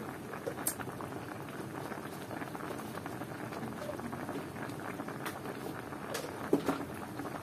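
A pot of chicken feet boiling in brown palo broth (dark soy and five-spice), with a steady crackling bubbling. A short, sharp knock comes about six and a half seconds in.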